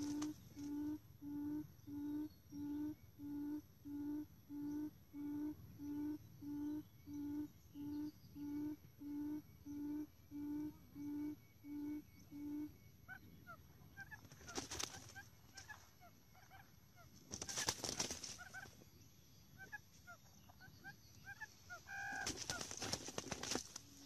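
Quail lure call: a low hoot repeated about one and a half times a second, which stops about twelve and a half seconds in. After it come faint high chirps and three short bursts of rustling noise.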